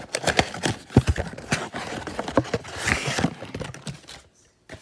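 Cardboard trading-card box being handled and opened up close: a run of irregular knocks and taps with cardboard rustling, the loudest knock about a second in and a longer rustle about three seconds in.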